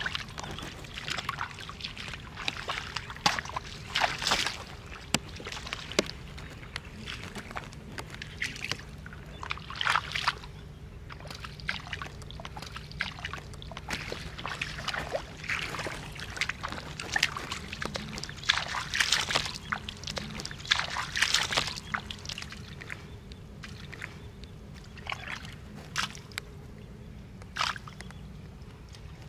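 Bare feet wading and sloshing through ankle-deep muddy water, with hands splashing into the mud, in short irregular splashes at uneven intervals.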